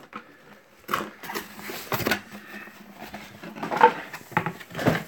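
Cardboard box and packaging being handled: a string of short rustles and knocks, loudest about four seconds in.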